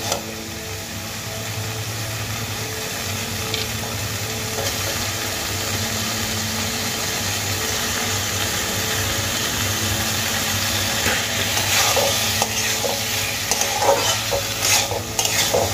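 Masala paste, fried potato wedges and sliced tomatoes sizzling in hot oil in a metal kadai as the masala is fried down. In the last few seconds a metal spatula scrapes and stirs the pan in a quick run of strokes.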